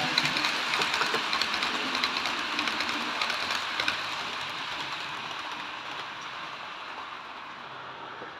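Model trains running on the layout's track: a steady rattle of small metal wheels clicking over the rails, fading gradually as a train moves off.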